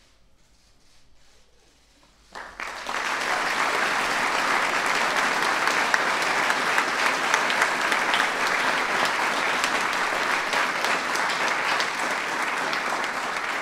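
Audience applauding, starting suddenly about two seconds in and continuing steadily.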